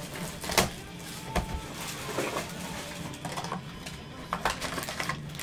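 Gloved hands opening and handling a box of trading cards: scattered sharp clicks and taps of cardboard with brief rustling, over a steady low hum.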